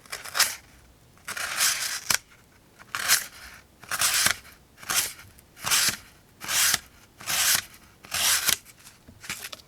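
The CPM 154 Wharncliffe blade of a Sig Sauer X-1 Microflip folding knife slicing through paper in repeated strokes, about ten short cuts roughly one a second, each a brief rasping hiss.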